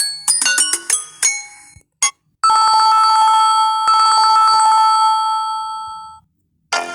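Samsung Galaxy A01 ringtones played one after another. A melody of short bell-like notes dies away, then a steady ringing tone with a rapid flutter holds for about four seconds and fades out, and another electronic ringtone begins at the very end.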